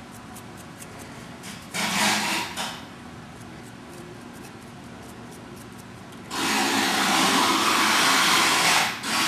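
Two bursts of loud, even hissing, a short one about two seconds in and a longer one of about two and a half seconds starting near six seconds, with a brief third near the end.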